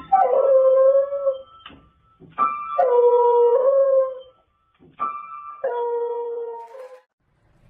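A beagle pawing the keys of an upright piano and howling along, three times over. Each time piano notes sound together and a long howl slides down in pitch, then holds before stopping.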